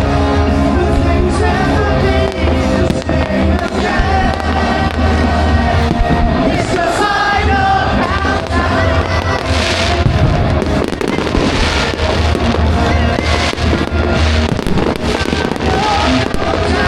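Fireworks bursting and crackling over loud music with a heavy bass line; the bursts come several times in the second half.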